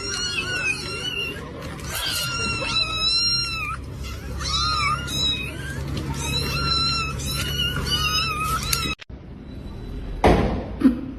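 Cat meowing over and over in short, high, wavering cries, which stop abruptly about nine seconds in; a brief noisy rustle follows near the end.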